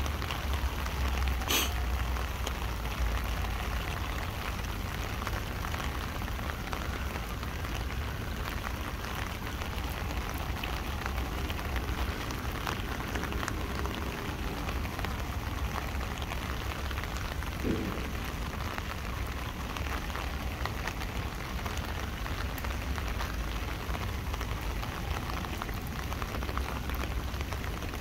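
Heavy rain drumming on an umbrella overhead in a steady dense patter, over a steady low rumble. A sharp tap sounds about a second and a half in, and a brief dull knock about two-thirds of the way through.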